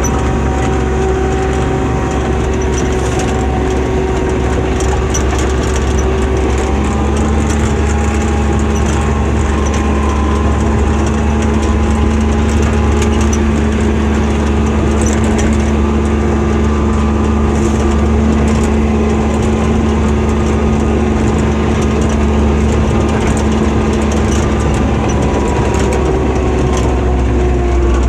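ATV engine running at a steady cruising speed while riding, its drone holding nearly one pitch with only slight drifts, over a heavy low rumble.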